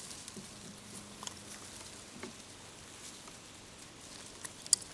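Low rustling of bilberry bushes, with scattered small clicks as berries are picked by hand into small cups, and one sharper click a little before the end.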